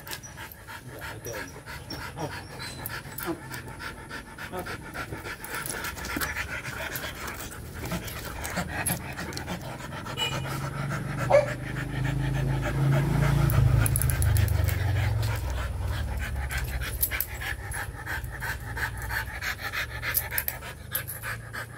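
Rottweilers panting quickly and steadily with open mouths. A low rumble swells in the middle and fades again.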